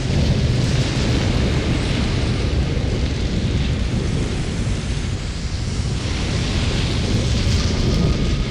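A steady, loud, low rumble with a hissing edge from a theme-park ride sound-effect track. A faint high steady tone comes in near the end.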